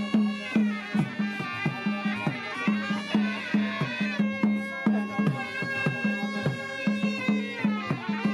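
Traditional-style music: a steady low drone under a wavering melody, with a drum beating a regular rhythm.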